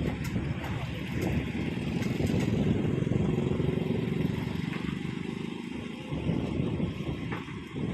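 A heavy engine running steadily, with a few light clatters, growing louder through the middle and easing off after about five seconds.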